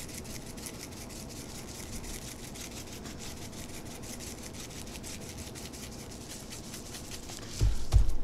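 Dry fajita seasoning being worked onto raw skirt steak by hand: a steady, fine scratchy rustle. About a second before the end, a few loud low thumps.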